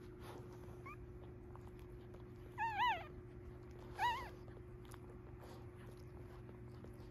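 Newborn Cavalier King Charles Spaniel puppies squeaking: a short squeak about a second in, then two louder wavering cries, near the middle, over a steady low hum.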